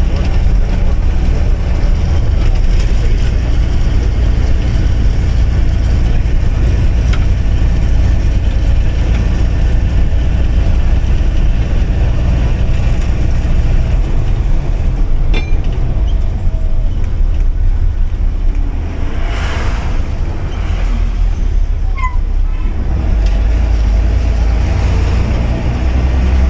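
Leyland bus diesel engine droning steadily, heard from the driver's cabin while the bus is under way. About three-quarters through, the engine eases off and there is a brief hiss of air.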